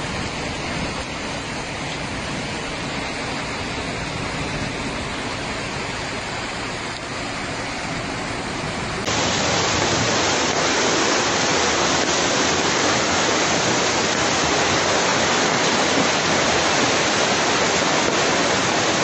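Steady noise of heavy rain and running water. About halfway through it cuts to a louder, hissier rush of floodwater pouring along a street.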